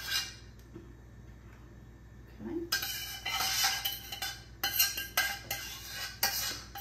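A metal spoon scraping and clinking against the inside of a large stainless steel pot as thick meat sauce is scraped out into a baking dish: a brief clatter at the start, a short lull, then a quick run of scrapes and knocks from about two and a half seconds in.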